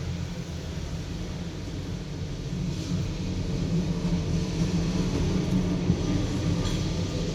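Steady low background rumble with a faint hum, and a couple of light clicks.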